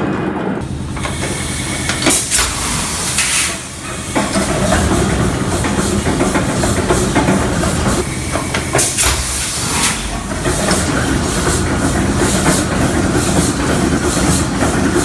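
Large old diesel engine running, with a steady low rumble and a regular beat. Several bursts of hissing come in the first part, and a rhythmic clatter follows in the second half.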